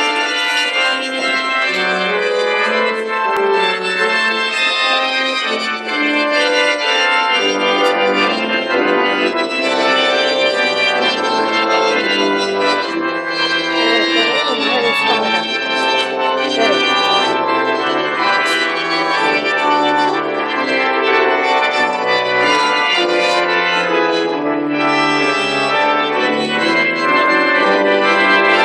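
Organ playing processional music in sustained full chords, with deep bass notes coming in about seven seconds in.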